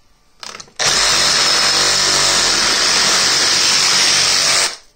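Makita reciprocating saw cutting through a plastic blister pack. After a brief burst about half a second in, it runs loud and steady for about four seconds and then stops abruptly.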